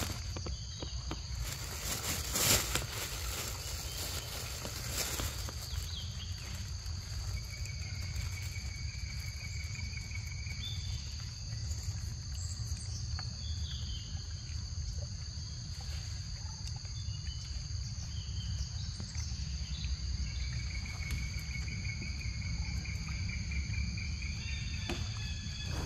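Steady high-pitched drone of a forest insect chorus over a low rumble. A few sharp rustles and knocks come in the first seconds, and a chirping trill rises over the drone twice.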